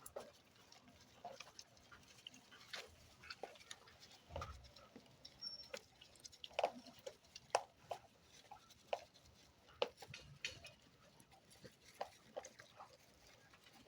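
Goats feeding from a trough of dry ration: faint, irregular small clicks and rustles of feed being picked up and chewed.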